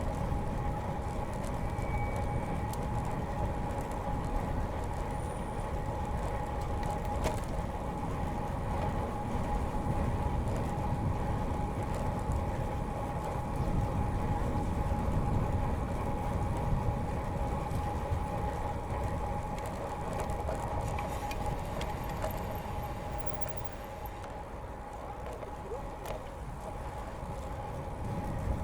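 Riding a road bike on a paved path: steady low rumble of tyres and wind on the microphone, with a steady hum held throughout, easing off a little near the end.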